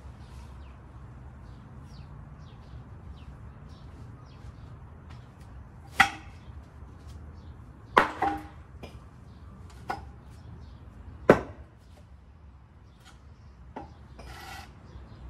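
Firewood being split by hand: four sharp chopping strikes of a blade into wood, about two seconds apart, then a lighter strike and a short clatter near the end.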